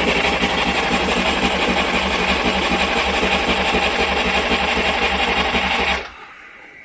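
Electric starter cranking an old marine diesel engine steadily without it firing, run to push air bubbles out of the fuel line through a cracked bleeder valve. The cranking stops abruptly about six seconds in.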